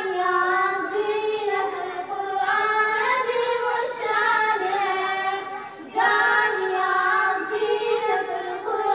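Young voices singing a slow, unaccompanied melody, holding long notes, with a short break for breath just before six seconds.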